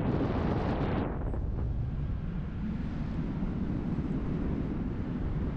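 Wind rushing over the microphone of a paraglider pilot in flight: a brighter, stronger gust for about the first second, then a steady low rumble.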